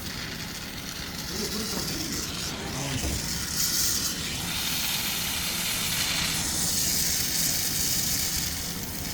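Electric arc welding: the arc gives a steady, high hissing noise that grows a little louder after the first couple of seconds.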